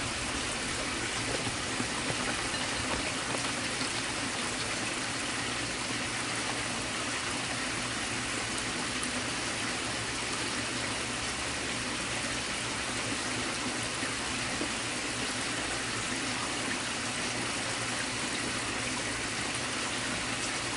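A creek running: a steady, even rush of water.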